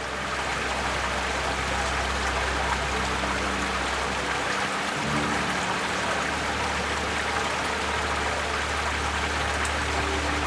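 Rushing water of a mountain stream, a steady hiss that sets in at the start, under background music with held low notes.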